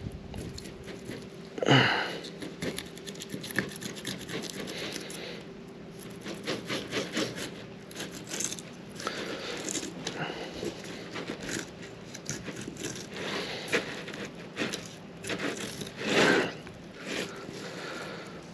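9-inch serrated SORD fillet knife sawing and scraping through a black drum's tough scales and along its backbone in short, crunchy strokes, with a louder crunch about two seconds in and another near the end.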